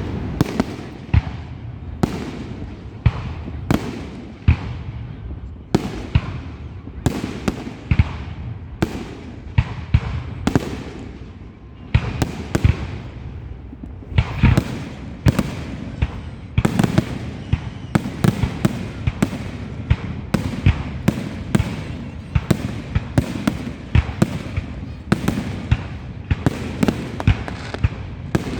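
Fireworks going off close by: a long series of loud bangs, each trailing off in a rumbling echo. The bangs come thicker and faster from about halfway through.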